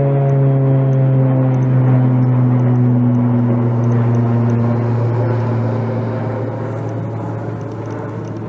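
Boeing C-17A Globemaster III's four turbofan engines running loud as the jet passes, its engine tones sliding slowly down in pitch while the sound fades over the last few seconds as it moves away.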